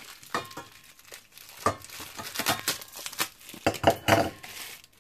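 Thin plastic bag crinkling and rustling as it is peeled off a block of ice in irregular crackles, loudest about four seconds in.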